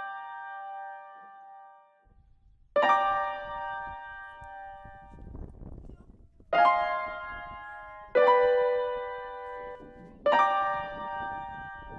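Music: sustained chords struck four times, roughly every two seconds, each starting sharply and ringing out as it fades.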